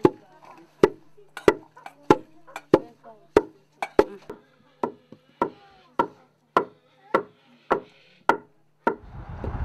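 Wooden pestle pounding dried fish in a wooden mortar: a steady rhythm of dull knocks, a little under two strokes a second. Near the end the pounding stops and a steady rushing noise takes over.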